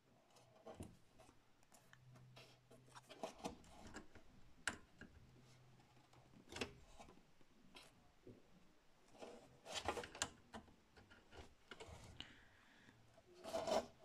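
Faint, scattered clicks, taps and rubbing of hands working a cable and its connector inside a desktop PC's steel case, with a cluster of quick clicks near the middle and another near the end.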